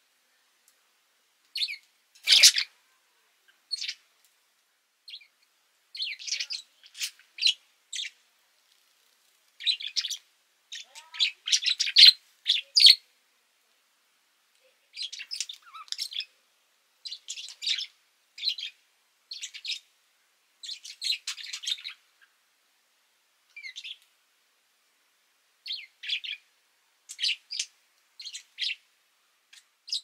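A budgerigar chirping: short clusters of quick, high chirps with gaps of a second or two between them.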